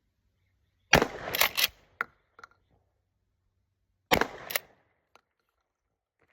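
Two shots from a pump-action Remington 870 12-gauge loaded with less-lethal rounds, about three seconds apart, each followed within half a second by a couple of sharp clacks as the pump is racked.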